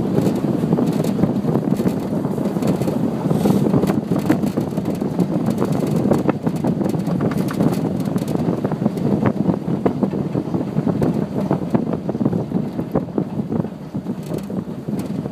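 Wind buffeting the microphone in the open bed of a moving pickup truck, over the truck's steady road noise, with many small clicks and knocks scattered through it.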